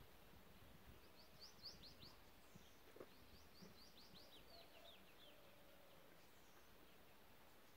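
Faint outdoor ambience with a bird singing: two quick runs of high, downward-sliding chirps, the first about a second and a half in, the second starting about three seconds in and lasting about two seconds.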